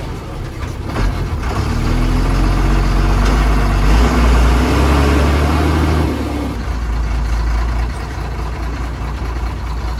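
Diesel engine of a TNSTC government bus, heard from inside the bus, running under load with a loud low rumble. The engine note climbs for a few seconds, then eases into a steadier rumble after about six seconds.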